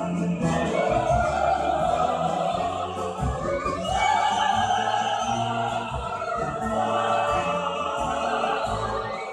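Opera-style classical music: sustained singing with orchestral accompaniment.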